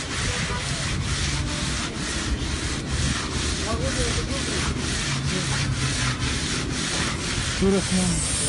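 Rhythmic scraping and rubbing of sheeryakh being churned by hand, a metal ice-cream cylinder worked in its bed of ice, about two and a half strokes a second.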